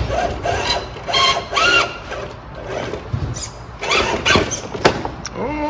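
Radio-controlled scale rock crawler's electric motor and gears whining in short bursts that rise and fall in pitch as it crawls over rocks, with one sharp knock near the end.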